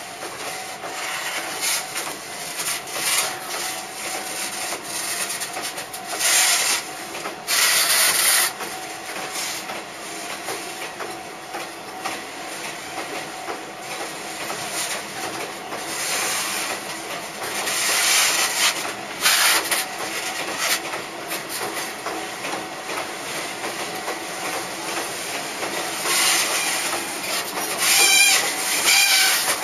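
A freight train of loaded Chichibu Railway Woki 100 hopper wagons rolling slowly past, its wheels clacking over the rail joints. Several short, loud, high-pitched noises rise over the steady rumble.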